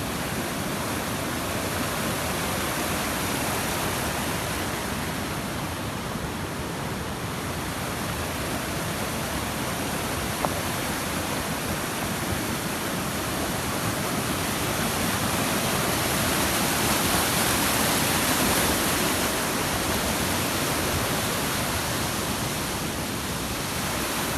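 Rushing water of a flood-swollen mountain stream: a steady, continuous rush that swells a little past the middle.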